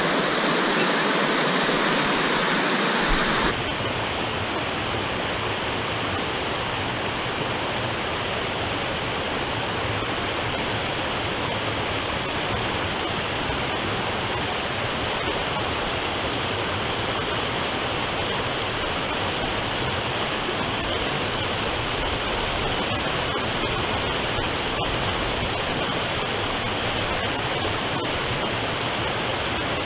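River water rushing steadily over a shallow, rocky riffle of whitewater. About three and a half seconds in, the level drops slightly and the sound turns a little duller.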